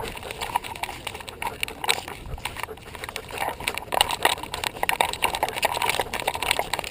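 Handling noise from a GoPro Hero in its housing on a German Shepherd's nylon collar as the dog moves: a steady run of irregular clicks, knocks and rubbing.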